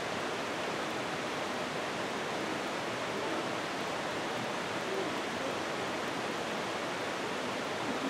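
Steady, even rushing noise with no distinct events, of the kind made by running water or wind.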